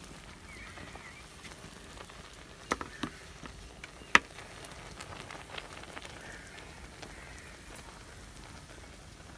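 A pot of saag boiling hard over a wood fire: a steady bubbling hiss as a wooden ladle stirs and presses the greens down, with a few sharp knocks, the loudest about four seconds in.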